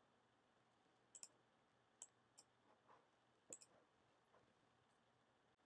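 Faint computer mouse clicks: about half a dozen short clicks, a couple of them in quick pairs, spread out over a few seconds.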